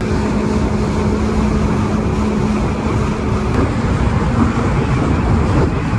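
Jet ski engine running steadily at speed, a loud, even drone with wind rushing over the microphone.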